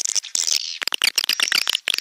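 Recorded swiftlet calls: dense, rapid chattering clicks and twitters, a lure sound of the kind played in swiftlet houses to draw the birds in to nest.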